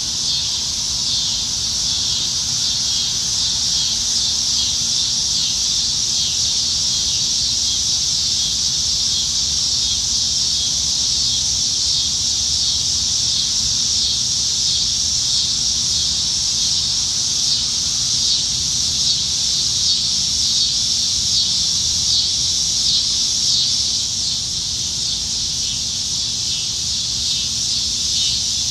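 A chorus of many cicadas singing in the trees: a steady, dense, high-pitched buzzing drone with a fast pulsing texture, holding unbroken.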